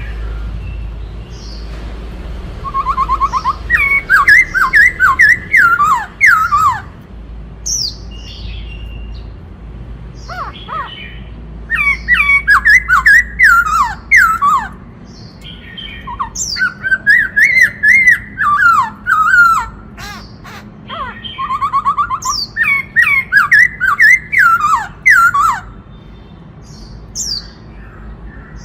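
White-cheeked laughingthrush singing: four loud bouts of rapid, falling whistled notes run together with harsh, scratchy notes, with softer calls between the bouts.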